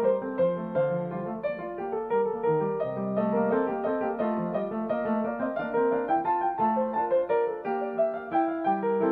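Background piano music: a steady run of notes over a lower accompaniment.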